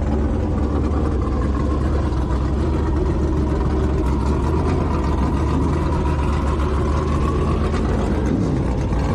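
Engine running steadily at an almost constant pitch, a loud low drone that cuts off abruptly at the end.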